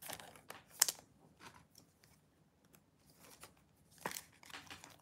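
Brief, faint rustles and crinkles of trading cards and a foil pack wrapper being handled, with a sharper crackle about a second in and a short cluster of crackles about four seconds in.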